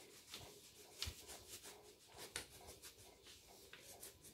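Faint scratching of a crayon colouring on paper, in short irregular strokes.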